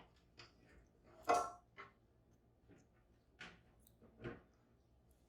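Small lock parts clicking and tapping as they are handled and set down on a hard surface: about five light clicks, the loudest about a second in with a short metallic ring.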